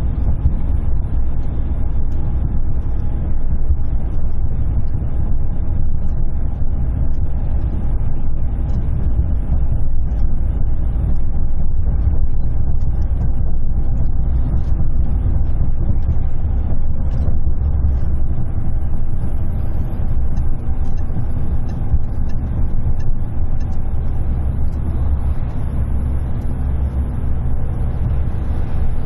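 Heavy truck heard from inside its cab at motorway speed: a loud, steady low rumble of engine and tyres, with the wheels beating a rapid 'dadadadada' rhythm over concrete road-slab joints.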